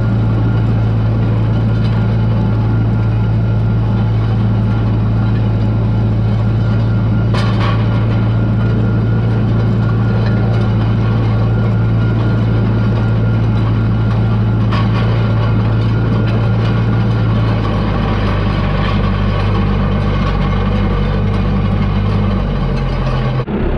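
Tractor engine running steadily while pulling a ring roller across a field, with two sharp clicks about a third and two-thirds of the way through. Near the end the engine note drops and wavers as the tractor slows.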